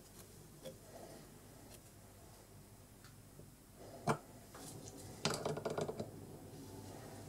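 Wrenches handled on a steel shaft and nut: a few faint ticks, then a sharp metal clink about four seconds in and a short run of clinks and rattles about a second later as a spanner and an adjustable wrench are fitted to the hex.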